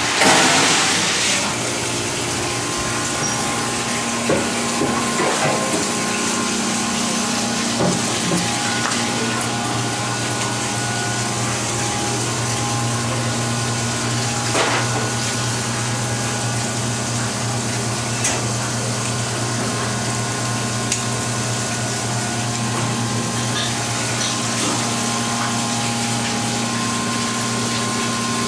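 Steady hum and whir of commercial kitchen machinery, such as refrigeration and ventilation, with a short rushing noise right at the start and a few scattered sharp knocks and scrapes as a large tuna is cut on a cutting board.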